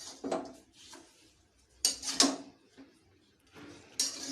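Metal kitchenware being handled: three short clattering bursts about two seconds apart, the middle one the loudest.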